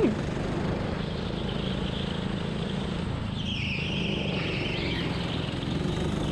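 Indoor rental go-kart running steadily at speed. About three seconds in, its tyres squeal for a second or two as it turns through a tight hairpin.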